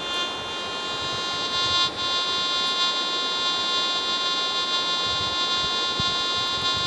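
Metal detector sounding a steady, unbroken buzzing target tone as a handful of soil is held over its search coil, signalling metal in the soil, which turns out to be a piece of a tin can rather than gold.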